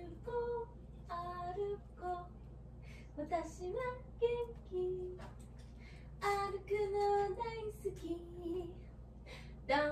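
A small child's high, sing-song vocalising: short pitched babbles and a few held notes, with pauses between.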